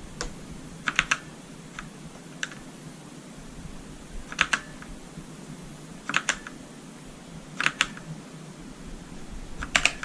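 Keys on a Redragon Ratri K595 mechanical keyboard with Outemu Black linear switches being pressed one at a time, a sharp clack every second or two, several as quick double clacks.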